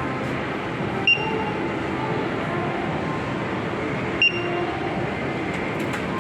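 Steady din of a busy game arcade full of claw machines, with two short, bright metallic dings about three seconds apart.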